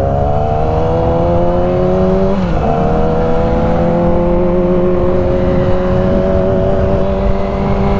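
Motorcycle engine and exhaust under acceleration: the revs climb, drop with an upshift about two and a half seconds in, then rise slowly and settle into a steady cruise, over a low rumble of wind and road noise.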